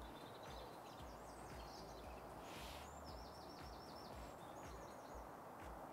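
Small birds chirping over faint, steady outdoor background noise; about three seconds in, one bird gives a quick run of about eight repeated high notes.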